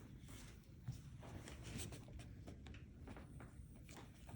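Faint, scattered small clicks and rustles of handling over quiet room tone.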